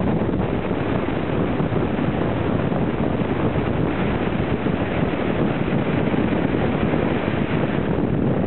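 Steady, loud wind buffeting on the microphone of a camera riding on a Triumph Tiger 800 XCx motorcycle at motorway speed, with no clear engine note above the rush.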